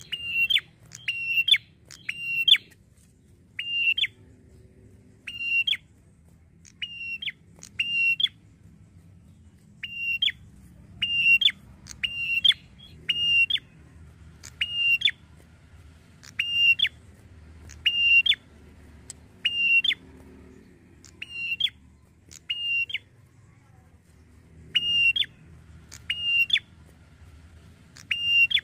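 A red-headed tailorbird, the ashy tailorbird, calling: a long run of short, sharp, loud high notes repeated about once a second, some in quick pairs, with brief pauses.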